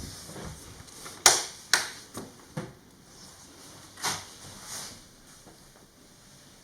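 A handful of sharp knocks and clicks, the loudest about a second in, with others spaced over the next few seconds.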